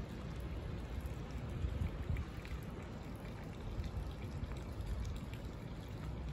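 Steady rushing water noise, with a few faint light ticks.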